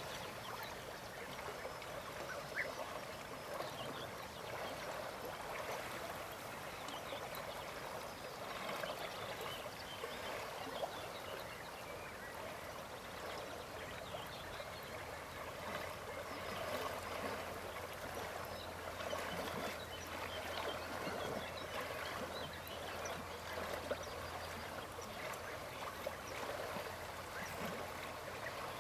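A dense, continuous chorus of many small, distant animal calls. A faint low hum comes in about midway and fades out near the end.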